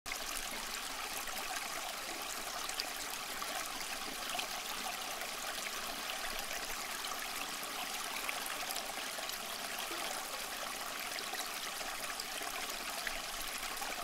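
Water of a homemade cement tabletop rain fountain falling in thin streams from overhead spouts onto a ribbed step face and into the basin: a steady trickle and splash with small scattered drip ticks.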